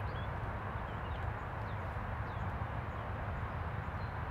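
Steady outdoor background with a low rumble and a few short, faint bird chirps.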